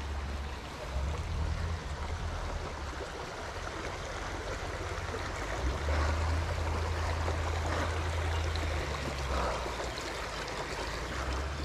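Small mountain stream running and trickling over rocks, a steady even rush of water, with a low rumble coming and going twice.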